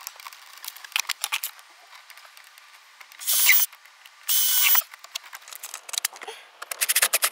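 Cordless drill running in two short bursts about half a second each, driving screws through a mounting bracket into the dashboard. Quick clicks come before and after the bursts.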